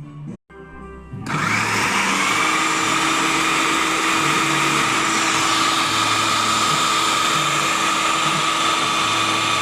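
Mondial household blender motor switching on about a second in and running steadily at speed: a loud even whirr with a high whine over it, with its drive gears just serviced.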